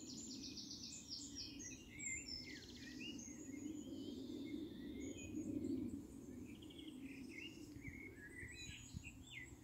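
Several songbirds singing and chirping, with short, varied trills and calls, over a steady low background hum.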